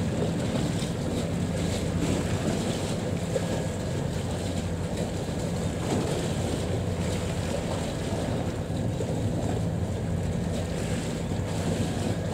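Steady low hum of a vessel's engine over wind buffeting the microphone and the wash of harbour water.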